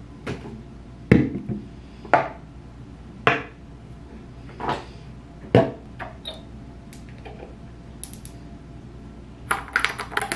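Skincare bottles and jars knocking on a bathroom counter as they are picked up and set down, about six separate knocks, then a quick run of small clicks near the end as a jar lid is twisted open.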